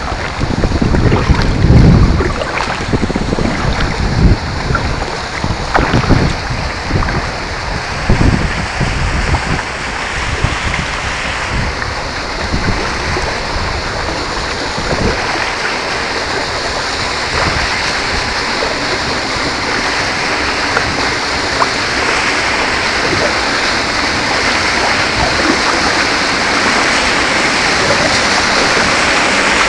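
Wind buffeting the microphone in low gusts over a rushing of river water, the gusts fading after about ten seconds into a steady water rush that slowly grows louder toward the end.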